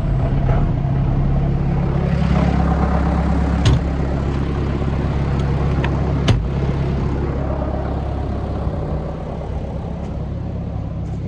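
John Deere 6420 tractor's diesel engine running steadily at idle just after being started, with two short sharp clicks, one about four seconds in and one about six seconds in.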